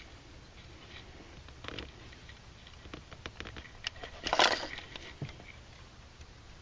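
Hands working a rubber spark plug wire boot free on a Mercedes M112 V6: scattered small clicks and rustles of rubber and wiring being handled, with one louder rustling scrape about four and a half seconds in. The boots are stuck hard and come off only with effort.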